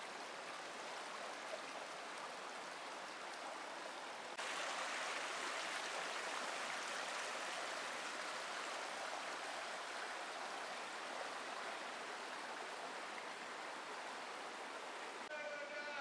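Canyon stream water rushing in a steady hiss, growing louder at a cut about four seconds in.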